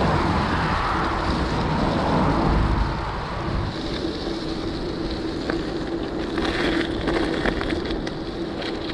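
Wind noise on a GoPro action camera's microphone while a bicycle is ridden along the trail, a steady rushing rumble that is heavier for the first few seconds and then eases a little.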